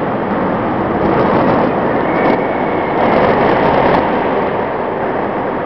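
Dense, loud noise of an indoor amusement park hall beneath a roller coaster track, swelling from about one to four seconds in.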